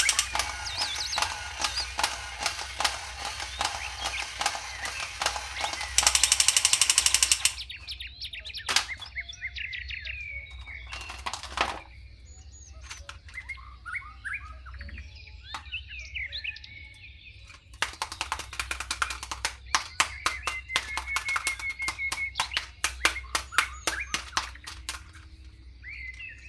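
Plastic toy packaging crackling and rustling as it is opened, in dense runs of rapid clicks, with birds chirping during a quieter stretch in the middle.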